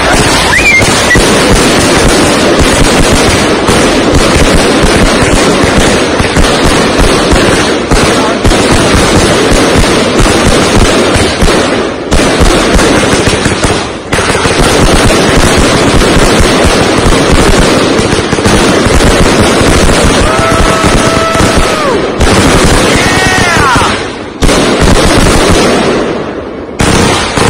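A consumer fireworks finale: a continuous, rapid barrage of aerial shells and salutes bursting, very loud, with a few brief lulls.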